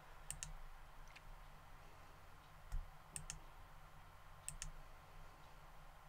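Faint computer mouse clicks, mostly in quick pairs and about four clusters over six seconds, as the right button is clicked with Shift held to select mesh faces. A soft low thump falls near the middle, over a faint steady low hum.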